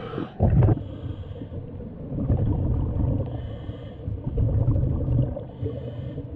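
Scuba diver breathing through a regulator, heard underwater. Low rumbling bursts of exhaled bubbles alternate with a short hiss at each inhale, about one breath every two seconds.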